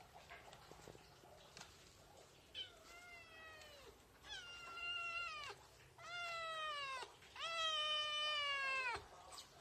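Young kitten meowing four times in a row: long, high-pitched calls that drop in pitch at the end, each louder than the one before.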